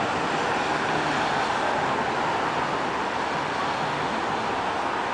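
Steady wash of city road traffic: cars, a taxi and SUVs running through a busy multi-lane intersection, engine and tyre noise blending into one even roar-free hum with no single vehicle standing out.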